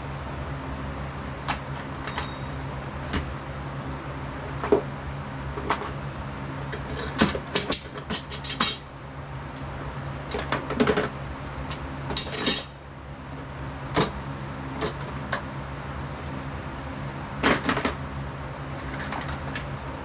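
Metal gym-rack parts and hardware being handled during assembly: scattered knocks and clicks, with three short bursts of rattling metal clinks, over a steady background hum.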